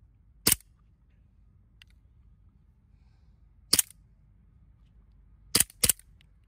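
KWC full-metal CO2 Colt 1911 airsoft pistol firing four loud, sharp shots: one about half a second in, another a little before the four-second mark, then two in quick succession near the end.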